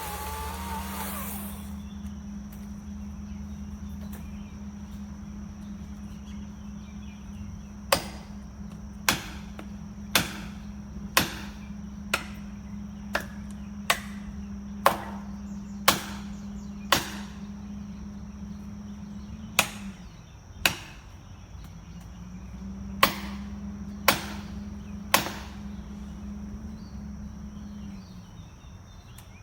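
A steady low hum, with sharp knocks about once a second for a stretch in the middle. The hum stops about two-thirds of the way through and starts again shortly after.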